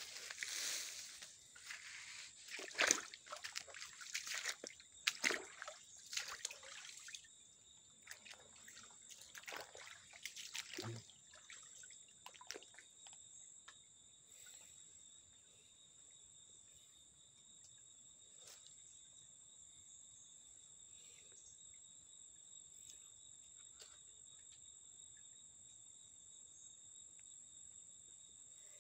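Shallow stream water trickling over a muddy streambed, with a steady high insect drone. For the first several seconds there are rustles and knocks.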